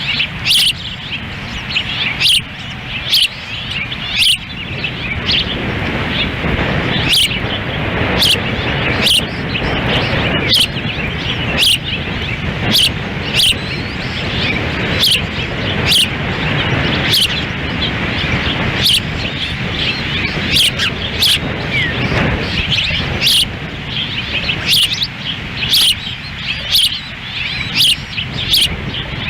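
Osprey giving short, sharp chirping calls about once a second, over steady wind rumbling on the microphone.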